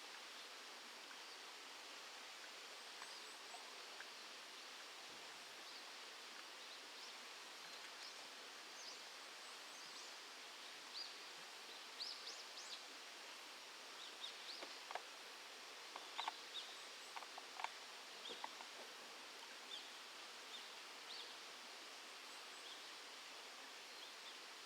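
Faint outdoor ambience: a steady hiss with scattered short, high chirps and light clicks, busiest around the middle.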